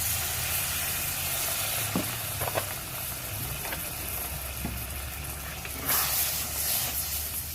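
Masala paste frying in hot oil in a pan, hissing and sizzling steadily after a little water is poured in, with a few light clicks and a louder hiss about six seconds in.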